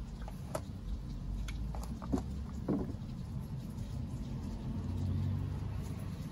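A few small clicks and taps as parts are handled at an outboard gearcase's oil plugs, over a steady low rumble.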